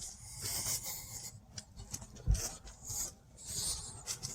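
Rustling, scuffing footsteps through dry leaves and brush, about one step every half second, with a single low thump a little past two seconds in.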